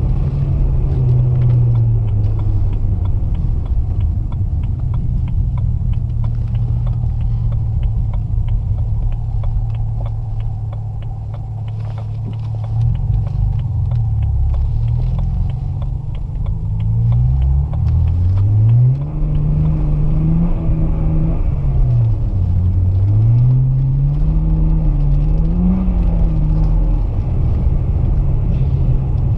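Twin-turbo inline-six N54 engine of a BMW 335i with catless downpipes, driving under way. Its note holds steady for about the first half, then rises and falls several times as the throttle is worked, before settling again near the end.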